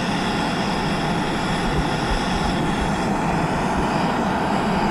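Small jet-burner camp stove on a Coleman butane canister burning with a steady rushing hiss under a stainless steel pot of water that is heating toward a boil.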